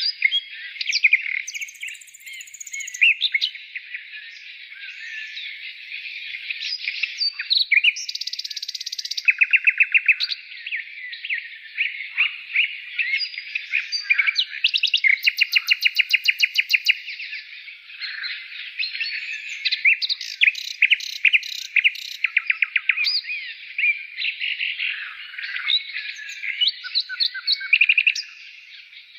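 A dense chorus of small birds chirping and twittering over one another, broken by rapid trills of many quick repeated notes.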